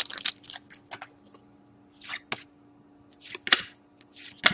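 Trading card pack being opened and its cards handled: a few short crinkles and rustles of the wrapper and cards.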